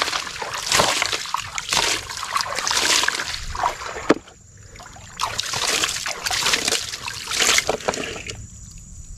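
A hand scrubbing a plastic toy dump truck's tipper bed in shallow water, making repeated splashing, sloshing swishes, with a short pause about four seconds in and quieter near the end.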